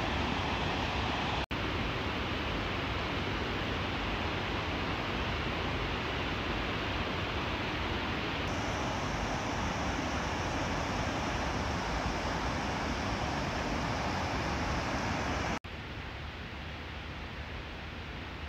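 Small river rushing over low stone weirs: a steady rushing noise, broken by a brief dropout about a second and a half in. Near the end it cuts off suddenly to a quieter steady hiss.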